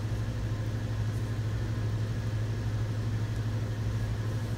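Steady low machine hum, one even drone that does not change.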